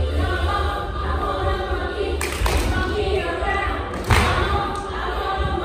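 Music with a group of voices singing over a steady bass beat, and the thuds of children's feet landing on a stage platform as they jump, the loudest about four seconds in.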